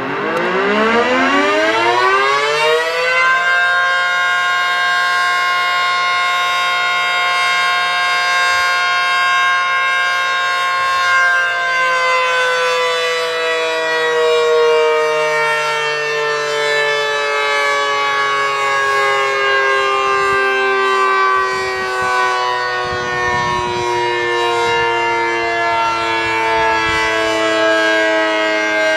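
ACA Screamer S-10 rotating electromechanical siren winding up quickly to full pitch over about three seconds, holding a steady wail, then winding down very slowly from about eleven seconds in and still sounding at the end. The quick wind-up and long, drawn-out wind-down come from its broken, sucked-down top intake lid, which lets almost no air in and leaves the rotor with little air resistance; its motor is also reverse-wired, spinning the angled rotor vanes the wrong way.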